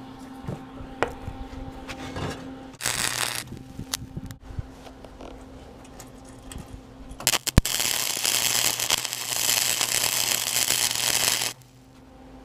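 Flux-core wire-feed welder arcing on mild steel: a short crackling burst about three seconds in, then a longer, louder steady crackle from about seven seconds in that stops shortly before the end. The weld fills the gap where the steel mast-step box meets the deck. A steady low hum and a few sharp clicks come between the welds.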